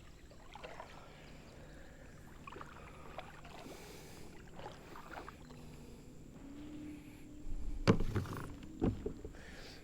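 Kayak on the water being moved and paddled: faint water and hull sounds, then a couple of sharp knocks against the kayak hull about eight and nine seconds in.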